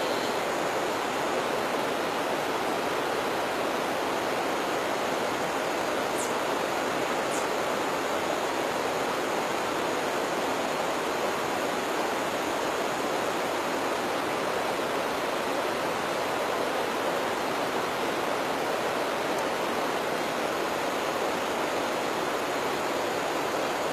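Steady, even rushing noise with no change in level, and two faint high ticks about six and seven seconds in.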